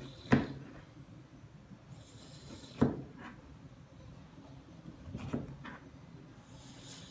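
A kitchen knife knocking sharply on a board, twice, about two and a half seconds apart, then once more softly. Light scraping sounds come in between.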